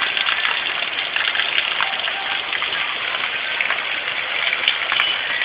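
Heavy rain falling, a steady dense hiss of water.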